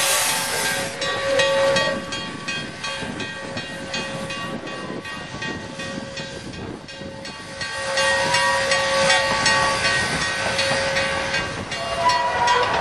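Steam train moving past: a loud steam hiss fades about a second in, then a quick run of clicks and knocks with thin steady ringing tones underneath.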